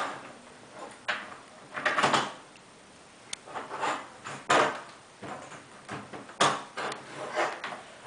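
Irregular knocks, taps and short scrapes as a toddler handles objects on a tabletop, a few of them louder.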